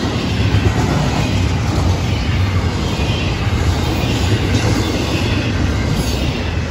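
Double-stack intermodal well cars rolling past on steel wheels and rail, making a steady, deep rumble.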